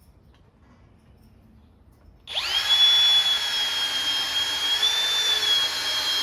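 Cordless drill driving a screw into hard wood: its motor whines up about two seconds in and runs at a steady pitch.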